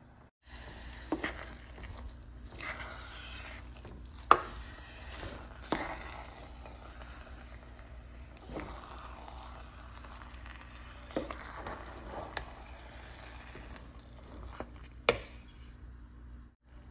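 Wooden spoon stirring a thick mix of glutinous rice, coconut milk and brown sugar (biko) in an aluminium pot, with about seven sharp knocks of the spoon against the pot, the loudest a little over 4 s in and near the end.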